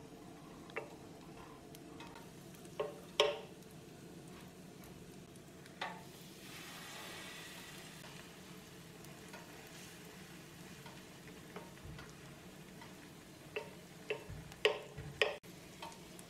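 Shredded-potato and celery-leaf batter frying in oil in an electric griddle pan with a steady low sizzle, while a wooden spatula scrapes and knocks against the pan, a few single knocks early on and a quick cluster of knocks near the end.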